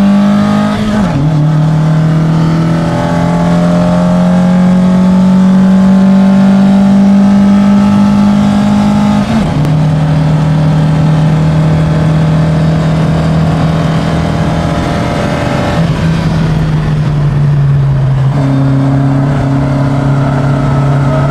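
Ford Escort Mk2 RS2000's four-cylinder engine pulling hard, heard from inside the cabin. The engine note holds fairly steady and steps down in pitch a few times, about a second in and again near the middle, as gears change.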